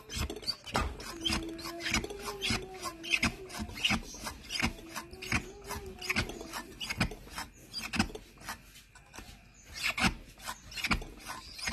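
Hand-pumped portable espresso maker finishing a shot: a dense run of irregular rasping, crackling clicks. A faint steady whine sounds from about a second in to past the middle.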